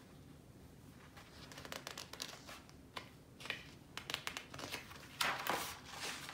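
Picture book pages being handled and turned: a run of soft paper rustles and crinkles that starts after a second or so and is loudest near the end.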